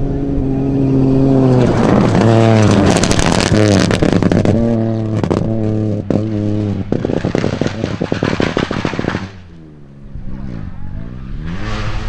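Rally car engines at full throttle on a gravel stage: the engine pitch drops and climbs repeatedly through gear changes and lifts, with a rapid crackling over it. Near the end the sound drops to a more distant car, its engine rising in pitch as it comes closer.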